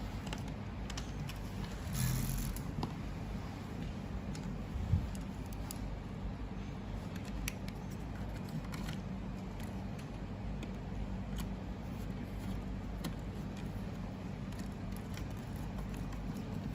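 Quiet handling noises of cables and connectors being fitted into the machine: scattered faint clicks and a brief rustle about two seconds in, with a soft bump about five seconds in, over a steady low hum.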